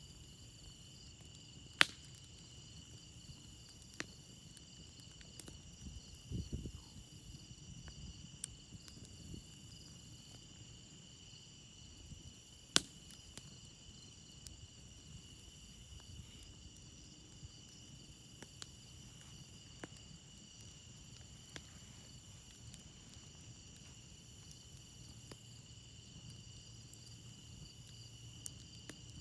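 Crickets chirping in a steady chorus while a wood campfire crackles, with scattered small snaps and two loud sharp pops, about two seconds in and about thirteen seconds in.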